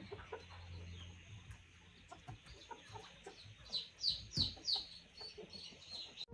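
Guineafowl calling: a quick run of about six short, harsh, high notes a little past the middle, over faint scattered ticks.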